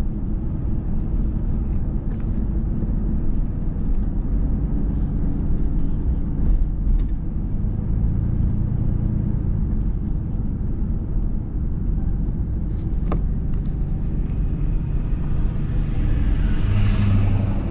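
A vehicle driving slowly, its engine and tyres making a steady low rumble, with a brief rushing hiss near the end.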